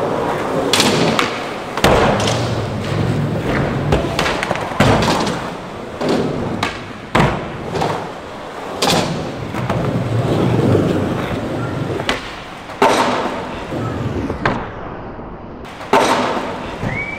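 Skateboard wheels rolling, broken by several sharp clacks and thuds of the board: pops, landings and slams.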